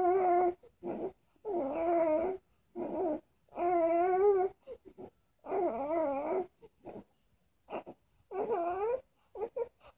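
Infant fussing with a pacifier in its mouth: a string of short whimpering cries, each under a second, wavering up and down in pitch, with brief pauses between them.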